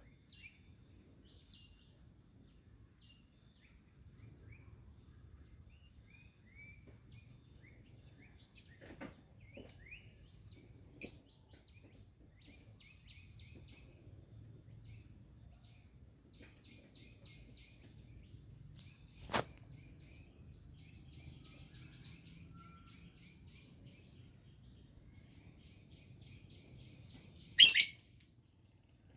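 Songbirds chirping in the countryside: scattered faint tweets, with a loud sharp call about 11 seconds in and a loud burst of calls near the end. A single sharp click comes about two-thirds of the way through, over a faint low rumble.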